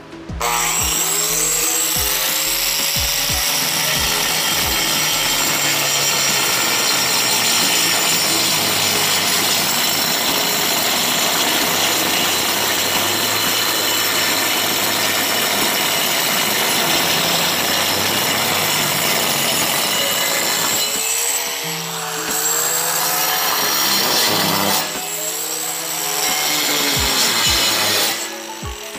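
Angle grinder driving a 5-inch vacuum-brazed diamond hole saw, switched on at the start and cutting dry through porcelain tile with a steady, loud grinding whine. Twice near the end the grinding eases and the motor's pitch wavers.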